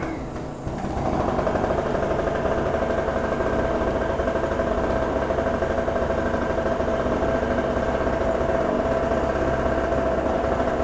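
Small two-stroke petrol engine of a TG950 portable generator running after being pull-started, coming up in level within the first second. Its sound fluctuates rather than running smoothly, which the technician takes as a sign of a faulty carburetor that overflows with fuel.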